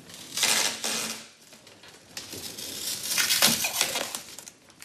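PVC tubing clattering and rattling as it is handled, in two bursts with quieter knocking between them.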